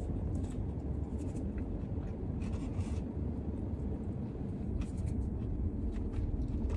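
Paper fry carton rustling and crinkling as hands pick through the fries, over a steady low rumble.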